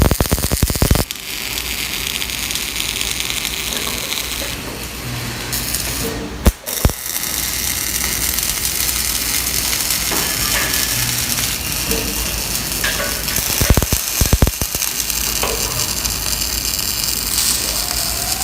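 Robotic arc welding: the arc hisses and crackles steadily, broken by a few sharp cracks near the start, once in the middle and in a short cluster later on.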